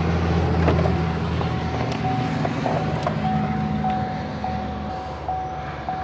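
A pickup's warning chime dinging over and over with the ignition switched on, starting about a second in, over the low steady hum of an engine running that fades after about five seconds.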